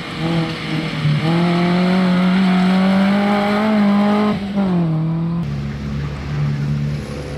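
Suzuki Jimny rally car's engine running hard at high revs on a gravel stage, its pitch climbing slowly, with a sharp drop and pick-up at a gear change about four seconds in. Shortly after, it gives way abruptly to a steadier, quieter low hum.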